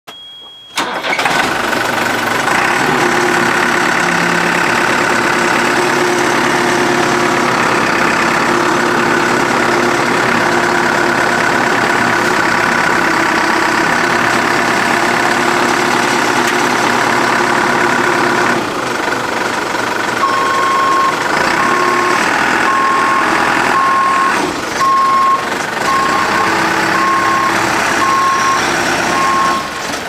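New Holland LB110 backhoe loader's diesel engine catching about a second in and running steadily. From about twenty seconds in, its backup alarm beeps about once a second.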